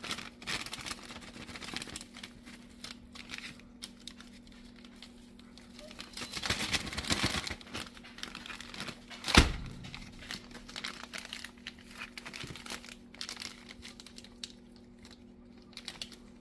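Plastic storage bag crinkling and rustling as it is handled around honey-covered steaks, with a single sharp thump about nine seconds in.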